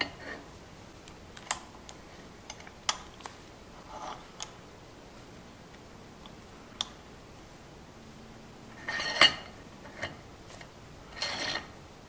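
Scattered light clicks and taps of metal and plastic parts being handled in a hand arbor press, with two louder short scrapes near the end. The sound is a 3D-printed plastic grip going onto a knurled brass hose-end adapter.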